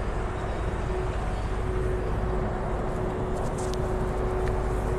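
A steady low rumble and hiss with a constant mid-pitched hum running through it. A few faint ticks come near the end.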